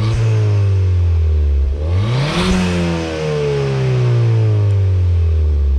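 Ford Fiesta ST engine revved twice through a newly fitted KMS Hurricane cat-back exhaust. The first rev is already falling away at the start; a second climbs sharply about two seconds in, then the revs drop slowly back to idle near the end.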